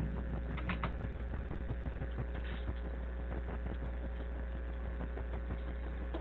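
Steady low electrical hum and hiss from the recording setup, with a thin steady tone above it and faint clicks scattered through, a few close together about a second in.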